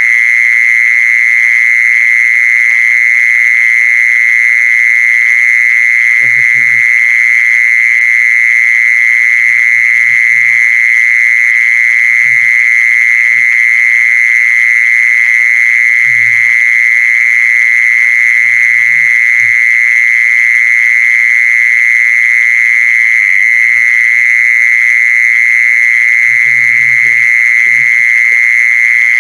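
Lure recording of the khmol's call: a loud, unbroken high-pitched trill held at one pitch, with a few faint low knocks now and then.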